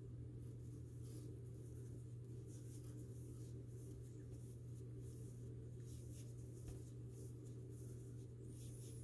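Faint rustle of cotton yarn being worked with an aluminium crochet hook, with the soft scratch of stitches pulled through, over a steady low hum.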